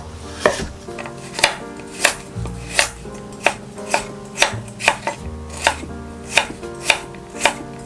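Kitchen knife chopping a carrot on a wooden cutting board: sharp knocks of the blade on the wood at an even, unhurried pace of about three every two seconds, with soft background music underneath.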